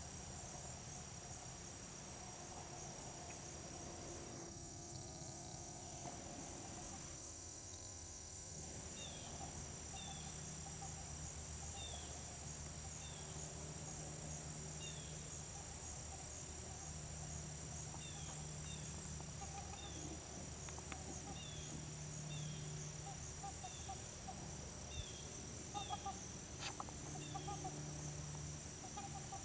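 Steady high-pitched chorus of crickets and other insects, with scattered short faint bird chirps and a few faint low calls from waterfowl near the end.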